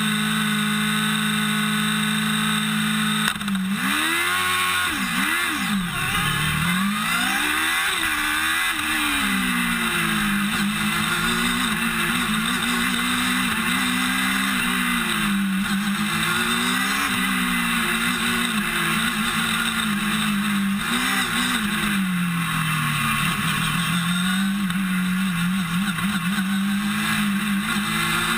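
Formula Student race car engine heard close up from the roll bar: idling steadily at first, then from about three seconds in revving as the car pulls away, its pitch rising and falling again and again as it accelerates and slows on the track.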